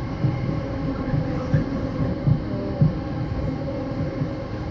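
Passenger train running along the track, heard from inside the carriage: a steady rumble of wheels on rails with a faint whine and a few irregular louder low knocks.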